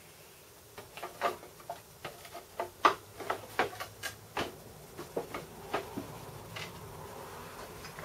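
The side cover of a Mitech plasma cutter being fitted back onto its chassis by hand: a run of light clicks, knocks and rattles of panel against frame, the loudest about three seconds in.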